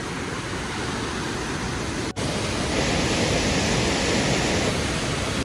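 Swollen mountain stream rushing white over boulders: a steady rush of water, with a brief break about two seconds in.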